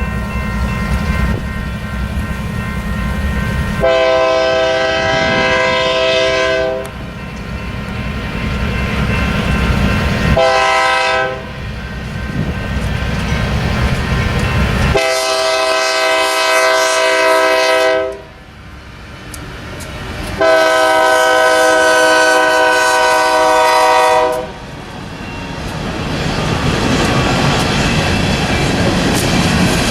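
Union Pacific freight locomotive's multi-chime air horn sounding a long blast, a short one, then two long ones, the grade-crossing warning pattern. A low locomotive rumble runs before the horn. Near the end there is a rising rolling noise of the train passing on the rails.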